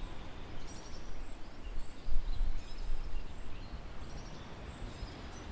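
Outdoor ambience: faint, scattered bird chirps over a low, uneven rumble that swells about two seconds in.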